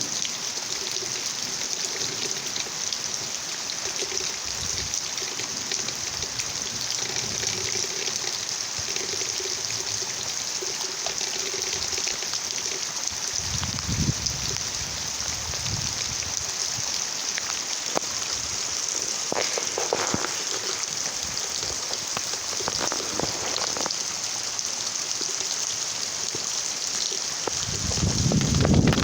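Steady rain falling, with individual drops ticking through the hiss. Near the end a low rumble of thunder builds.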